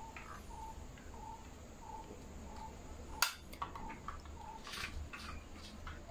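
Clicks and knocks of a 1:24 diecast model car being handled, with one sharp click about three seconds in as its bonnet is shut, and a few softer knocks as it is set down. Under it a faint high chirp repeats about three times a second.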